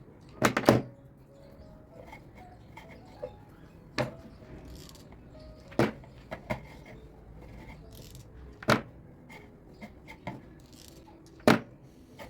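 Sharp knocks and clacks of household objects being handled and set down, about six in all, the first a quick double knock.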